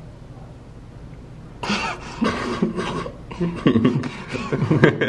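Low background noise, then about a second and a half in, loud, indistinct voices of people talking over one another, with coughing or laughing sounds mixed in.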